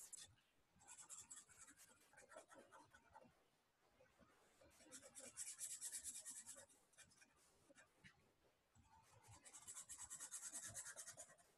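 Felt-tip marker scribbling back and forth on sketchbook paper as a drawing is filled in. It comes faint, in three bursts of quick strokes: about a second in, around the middle, and near the end.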